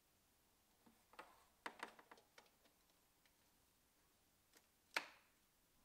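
A run of light plastic clicks and rattles from the waffle maker's power cord and plug being handled, then one sharp, louder click about five seconds in as the plug is pushed into a wall multi-socket.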